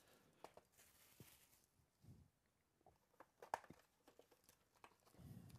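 Faint rustling and scattered light clicks of a cardboard hobby box and foil-wrapped trading card packs being handled, with one sharper click about three and a half seconds in.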